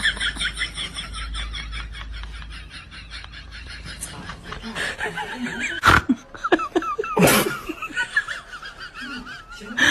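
A person laughing: a quick run of high-pitched pulses at the start, then softer, broken snickers, with two sharp knocks about six and seven seconds in.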